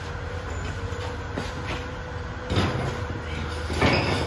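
A steady low engine drone, with loud clanks of steel parts about two and a half seconds in and again near the end.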